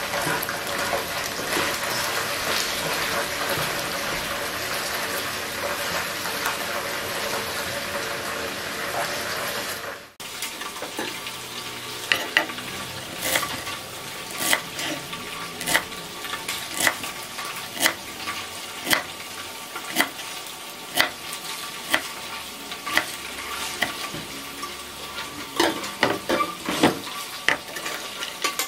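A kitchen knife chopping chive stalks on a wooden cutting board, sharp knocks about one a second, a few coming closer together near the end. For the first ten seconds or so a steady hiss covers everything, and it stops abruptly.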